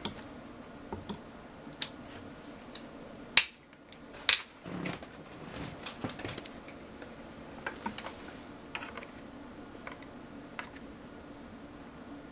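Scattered clicks and taps from handling test leads and plugs at a multimeter, with two sharper clicks about three and a half and four and a half seconds in, over a faint steady hum.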